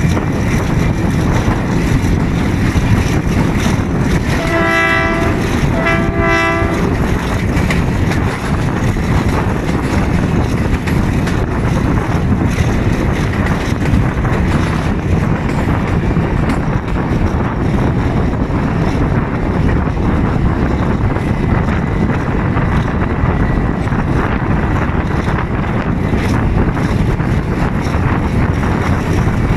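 GRU 20 diesel locomotive hauling a passenger train, heard from the coach right behind it: a steady rush of engine, wheels on rails and wind. About five seconds in come two short blasts of the locomotive's horn.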